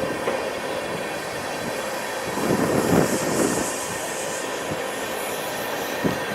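Freight train rolling past: a steady rumble of railcars on the track with faint wheel squeal, a louder swell about halfway through and a few sharp knocks near the end.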